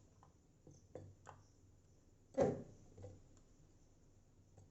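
A few light taps and knocks, with one louder knock about two and a half seconds in, as chopped chutney ingredients are put into a mixer grinder jar.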